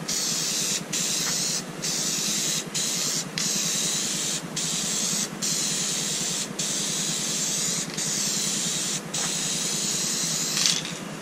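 Aerosol rattle can spraying glitter flake paint, hissing in bursts of about a second with short breaks between them, and stopping near the end.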